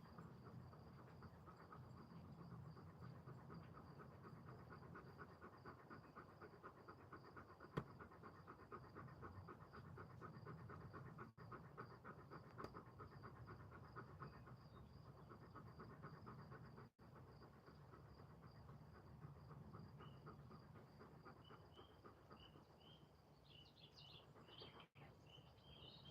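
Faint evening chorus of tree frogs trilling in rapid pulses, over a steady high insect drone, with a few short bird chirps near the end.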